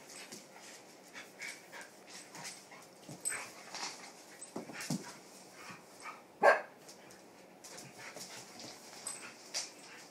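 A puppy and a larger dog play-fighting on a wooden floor, with scattered short dog noises and scuffles. One loud, short bark comes about six and a half seconds in.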